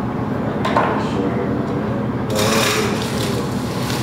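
Hands handling leaves and a plastic bag: a short sharp snip or tap just under a second in, then a rustle lasting about a second, over a steady low hum.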